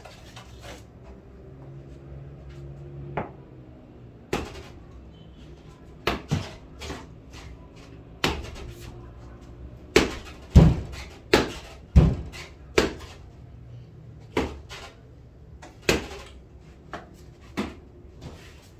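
A string of irregular sharp knocks and taps on a hard tiled floor in a small room. They are loudest and closest together in a cluster about ten to thirteen seconds in.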